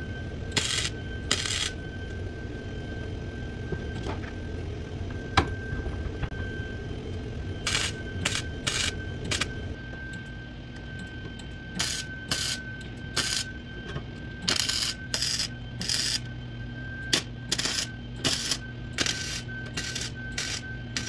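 Wire-feed welder laying a series of short tack welds, about twenty brief bursts in clusters with a pause of several seconds early on, joining a new steel strip to the rotted-out bottom of a Jeep door. A steady low hum and a thin high whine run underneath.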